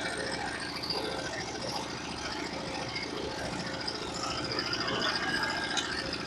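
Portable sawmill's engine idling steadily.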